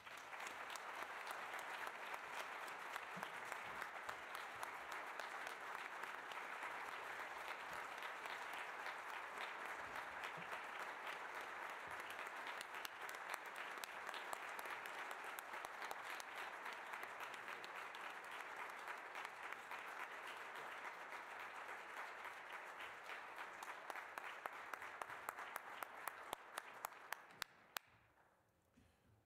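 Audience applauding, a dense steady clapping that thins to a few scattered claps near the end and then stops.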